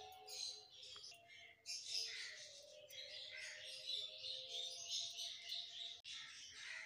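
Faint bird chirping over background music with a few held notes.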